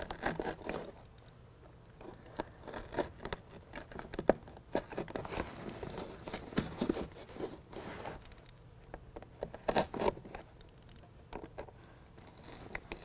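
Utility knife cutting small X-shaped relief slits through the closed-cell foam backing of a BedRug truck bed liner, heard as irregular short scratches and crinkles while the liner is held and worked.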